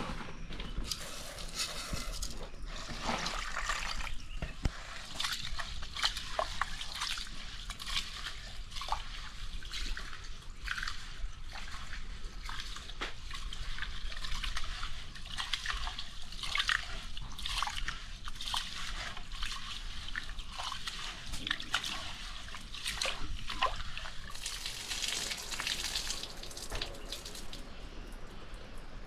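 Water sloshing and dripping, with many small irregular splashes throughout.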